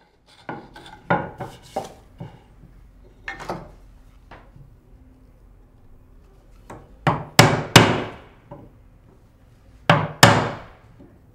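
Wooden mallet striking a chisel to chop a mortise in a wooden timber. A quick run of light blows comes first, then harder blows in twos and threes, each a sharp knock with a short ringing tail, the loudest near the end.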